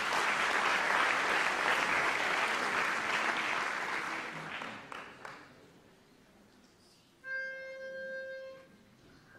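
Audience applause that fades away over the first five seconds. Then a single held reedy note near C, about a second and a half long, sounded on a pitch pipe to give the singers their starting pitch.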